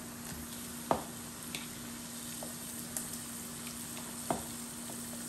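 Raw rabbit pieces sizzling steadily in hot oil in a pot, with two sharp clicks about one and four seconds in as more pieces are dropped in by hand. A steady low hum runs underneath.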